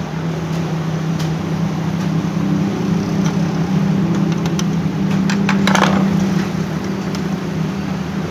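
Canon iR 1133 copier running, its drive motor and gear train giving a steady hum, with a few sharp clicks and a brief cluster of clicks just past halfway.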